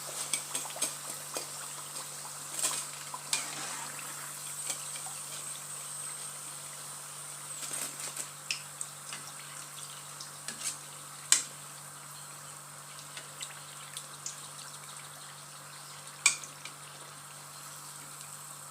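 Potato bhajia deep-frying in hot oil: a steady sizzle, with scattered sharp clicks and taps of a utensil against the pan, the loudest about 11 seconds in and another near 16 seconds.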